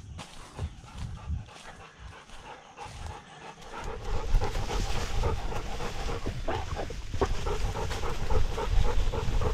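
A tracking dog panting hard right at a collar-mounted camera, getting louder about four seconds in; the dog is worn out after a 5.3-mile chase of a wounded buck.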